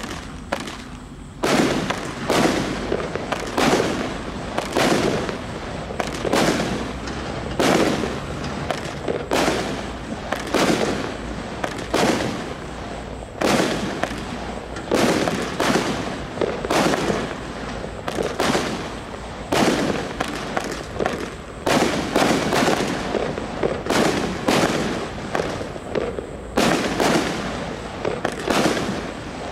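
A 50-shot, 1-inch-calibre fireworks cake firing shot after shot, each a sharp bang with a short decaying tail, about one a second, starting about a second and a half in.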